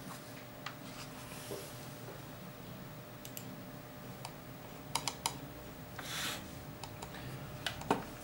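Scattered light clicks and taps, with a brief soft rustle about six seconds in, from a ballpoint pen and paper being handled on a desk.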